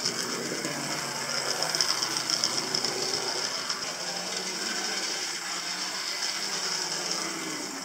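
Hornby OO-gauge model 0-4-0T tank locomotive running round its track: a steady whirring and fine rattling from its small electric motor, gears and wheels on the rails.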